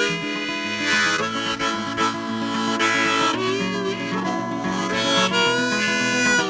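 Harmonica solo over a plucked acoustic guitar, the instrumental break after the sung verses of a folk song, the harmonica holding and bending notes.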